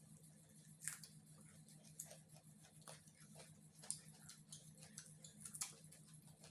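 Quiet eating sounds: irregular soft clicks and small crunches of chewing and mouth noises, over a faint steady low hum.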